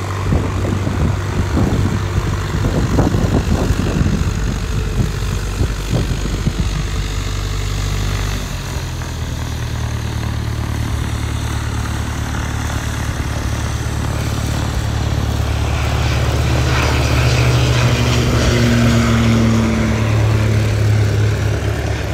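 Propeller aircraft engine drone; from about a third of the way in, a Pilatus PC-12 single-engine turboprop on its takeoff run, its engine and propeller growing louder and peaking in the last few seconds as it lifts off and climbs past.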